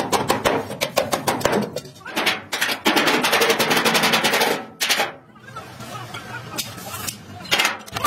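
A fast run of hammer blows on wooden floor planks, with a second, louder run about three seconds in, and only scattered knocks in the quieter last few seconds.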